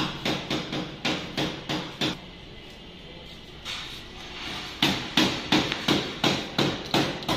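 Repeated hammer blows at a steady pace of about three a second, ringing a little; they stop for roughly two and a half seconds about two seconds in, then start again.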